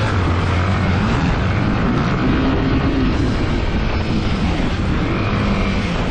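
Yamaha WR155R single-cylinder four-stroke dirt bike engine running steadily under throttle, its pitch rising and falling a little in the middle, over a constant rush of noise.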